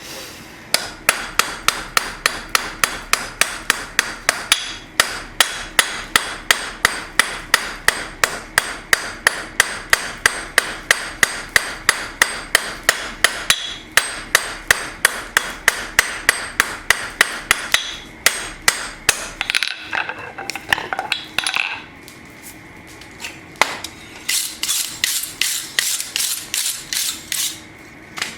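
Blacksmith's hand hammer striking a steel bar on an anvil in a fast, steady rhythm of about three blows a second, knocking down the corners of an octagonal bar to round it toward sixteen sides. The blows stop briefly past the middle, then resume in a shorter, brighter-ringing run near the end.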